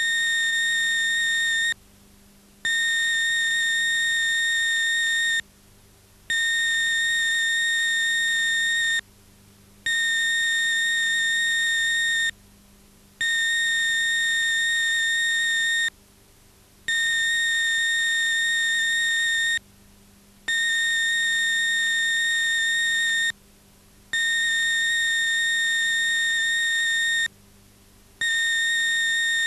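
Broadcast close-down tone from a television station's end-of-programme card: a steady, high-pitched buzzy tone that sounds for nearly three seconds, breaks off for under a second, and repeats about eight times, over a faint low hum.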